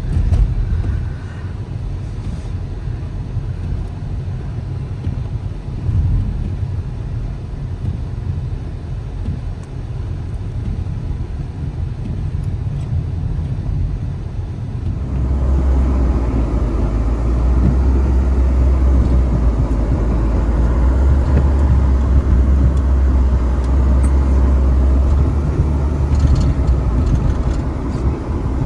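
Car engine and tyres heard from inside the cabin while driving through deep snow. The sound grows louder and heavier about halfway through as the car works through big snow drifts.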